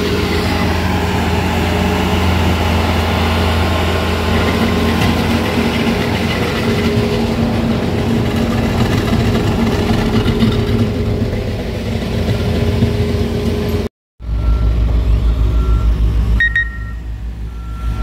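Skid steer engine running under load while its rotary power broom sweeps a milled asphalt surface, with a steady hiss of brushing. After a sudden cut about fourteen seconds in, a diesel paving machine's engine throbs while a back-up alarm beeps steadily, about two beeps a second.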